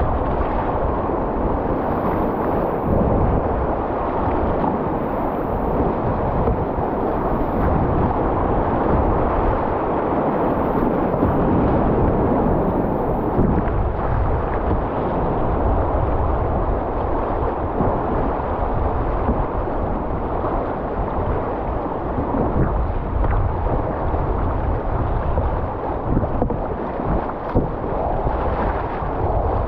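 Whitewater rapids rushing and splashing around a kayak's bow as it is paddled through the waves. The noise is loud and continuous.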